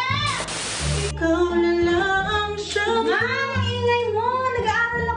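Background pop music with a high female singing voice over a steady bass line. A short burst of hiss near the start lasts under a second.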